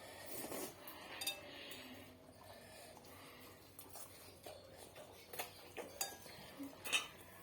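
Eating sounds: utensils tapping and clinking against a bowl, with scattered small clicks and brief rustles.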